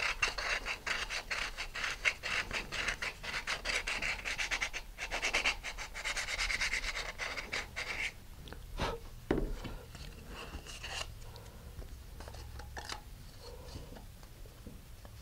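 Rough-grit sandpaper wrapped on a wooden dowel, scraping back and forth in quick strokes inside a plastic nose cone to widen its opening for a tube coupler. The sanding stops about eight seconds in, and a few light knocks and handling of the part follow.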